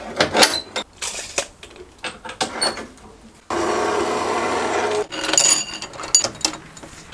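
Metal parts being handled and clamped: a run of sharp metallic clicks and knocks. About three and a half seconds in, an Axminster metal-cutting bandsaw runs steadily for about a second and a half, then cuts off, and more clicks and knocks follow.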